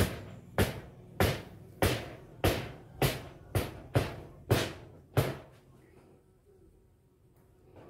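A series of about nine evenly spaced thuds, roughly one every 0.6 seconds, that stop about five seconds in.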